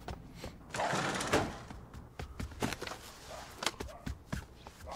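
Faint knocks, taps and thuds, with a short soft rush of noise about a second in: the anime's sound as a character comes through a doorway into a room and sets his bag down.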